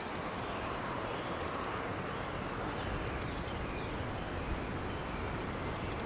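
Steady outdoor background hiss of wind on the microphone, with a faint high bird trill right at the start.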